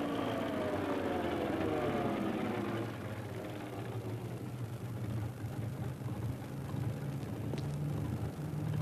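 Crew bus engine slowing as it pulls up, its pitch falling over the first few seconds, then running at a steady low idle.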